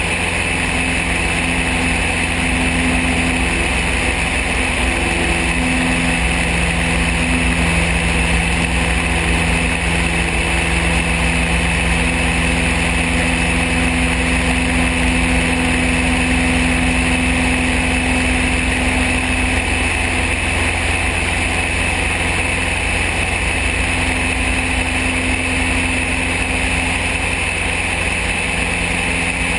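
Van's RV-7 light aircraft in flight, its piston engine and propeller making a steady drone with a low rush of air over the wing-mounted microphone.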